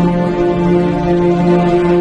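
Slow background music with long held notes.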